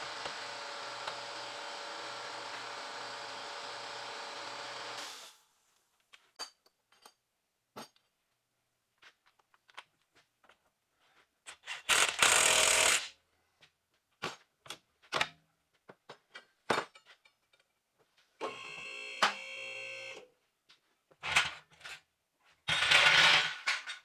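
DeWalt cordless impact wrench run in short bursts, hammering a tie rod end stud nut tight, with scattered light clicks of tools and parts between the bursts. One longer run in the middle whines at a steady pitch, and the first five seconds hold a steady hiss that cuts off suddenly.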